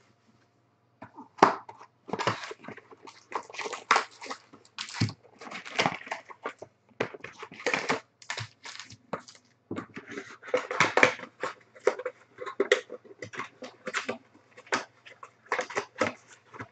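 Foil Panini Prizm trading-card packs crinkling and rustling in quick, irregular handfuls as they are taken out of an opened hobby box and stacked. It starts about a second in.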